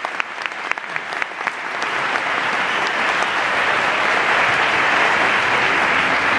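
Audience applauding: a few separate claps in the first second or so, which quickly build into dense, steady applause.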